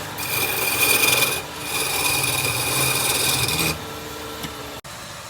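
Wood spinning on a lathe being worked with a hand-held tool: two loud hissing passes, about one and two seconds long with a short break between, each with a steady high whine. After that the lathe runs on more quietly.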